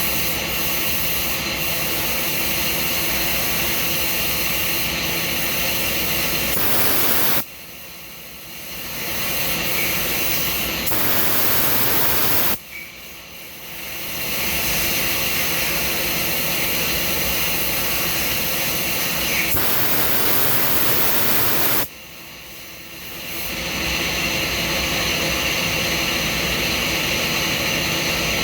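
Machining equipment running: a loud, steady rushing noise with steady whining tones in it. It cuts out abruptly three times and each time builds back up over a second or two.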